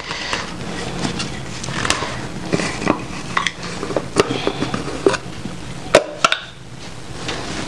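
Irregular light clicks and knocks as a small plastic jar is handled, its lid twisted open and the jar tipped; the sharpest are two knocks close together about six seconds in.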